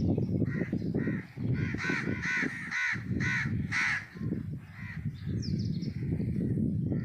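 A crow cawing about six times in quick succession, with small birds chirping near the start and end over a low rumble.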